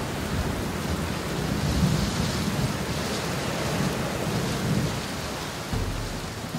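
Torrential rain pouring onto shallow water and wet sand, a steady hiss with a low rumble underneath. It drops away a little near the end.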